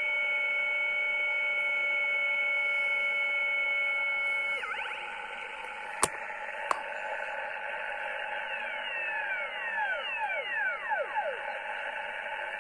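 Kenwood TS-530S HF transceiver's receiver audio from its speaker: a steady heterodyne whistle from a tuned-in carrier slides away about four seconds in as the tuning dial is turned, leaving the receiver's hiss. Two sharp clicks follow, then several whistles sweep down in pitch as the dial tunes across signals, and one rises near the end.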